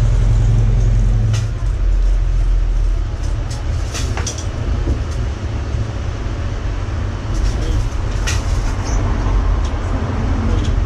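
Steady low rumble of road traffic, with a few sharp clicks or knocks about one and a half, four and eight seconds in.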